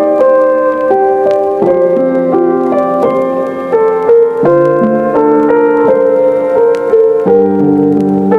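Background piano music: a gentle melody of held notes over chords, played steadily throughout.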